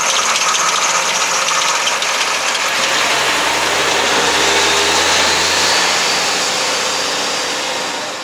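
Mercedes-Benz Unimog's diesel engine running steadily after being started.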